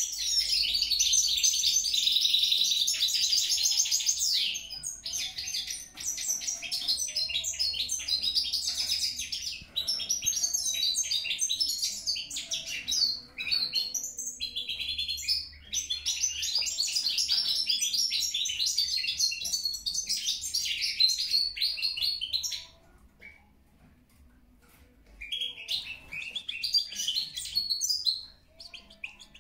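Caged European goldfinch singing its fast, twittering song in long continuous bouts broken by brief pauses. Near the end the song stops for a couple of seconds, then a last short phrase follows.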